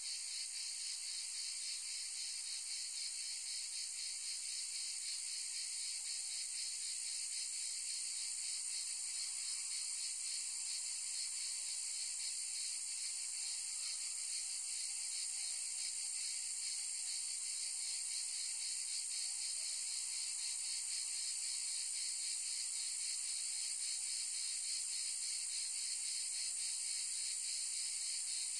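A dense chorus of insects: a steady, high-pitched buzzing hiss with a fast flicker that never lets up.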